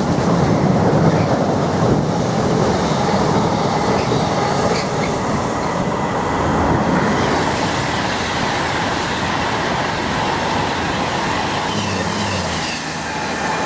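Freight train passing at speed: a loud, steady rush of wagon wheels on the rails, dipping slightly near the end.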